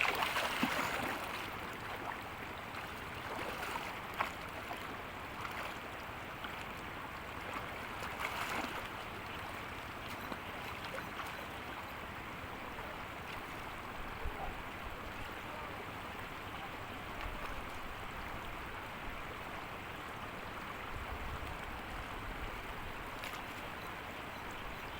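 Steady rushing of flowing river water, with a few brief louder moments near the start and at about four and eight seconds in.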